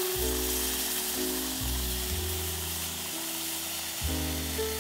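Cold milk pouring into a saucepan of hot butter-and-flour roux, sizzling and hissing as it hits the pan, with background music.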